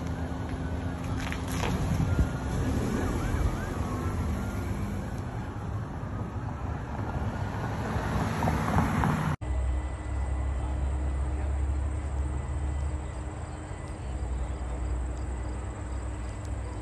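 Several emergency-vehicle sirens wailing, rising and falling over one another. About nine seconds in the sound cuts off suddenly to a steady low hum.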